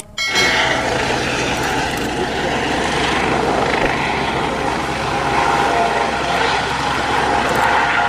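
Eurocopter EC135 helicopter in flight: a steady rush of turbine and rotor noise that starts abruptly just after the start.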